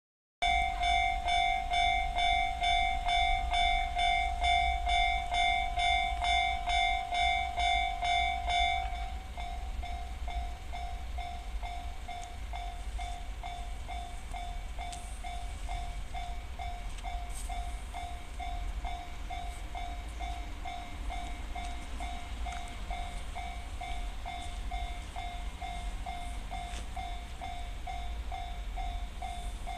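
Japanese railway level-crossing alarm, the JR standard electronic bell tone, ringing in even pulses about twice a second. About nine seconds in it drops to a lower volume and keeps ringing.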